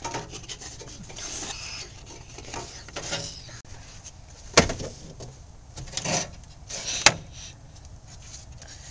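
Rubbing and scraping handling noises from parts being moved about. There are two sharp knocks, one about halfway through and one about two and a half seconds later.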